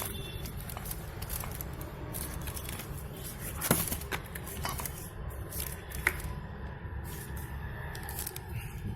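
Light clicks and knocks of washing-machine parts being handled while a new gearbox is fitted, with a sharper knock near the middle and another about six seconds in, over a low steady background rumble.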